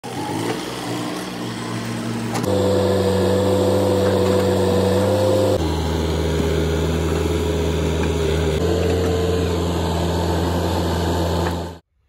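Diesel engines of farm tractors and a JCB backhoe loader running steadily, heard as short clips one after another. The engine sound changes abruptly about two and a half, five and a half and eight and a half seconds in, and cuts off just before the end.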